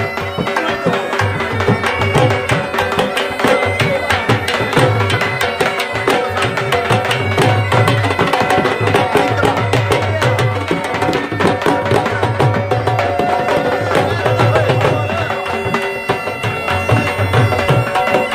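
Dhol drum beaten in a fast, driving dance rhythm, with deep bass strokes in repeating groups under rapid sharper strokes. Held tones from a wind instrument sound over the drumming.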